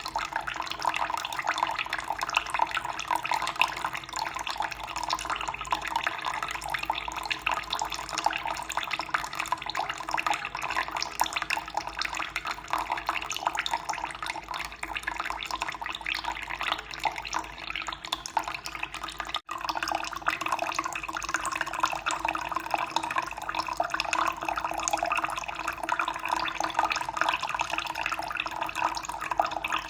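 Water running and splashing steadily in an even, continuous stream, with one split-second dropout about two-thirds of the way through.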